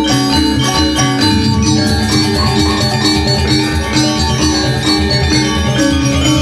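Balinese gong gamelan playing: bronze metallophones (gangsa) struck with wooden mallets in fast interlocking patterns, with kettle gongs and deep low strokes beneath, all ringing and shimmering together.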